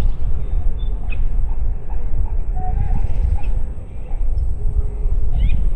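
Wind rumbling steadily on the microphone, with faint scattered bird chirps and short calls over it.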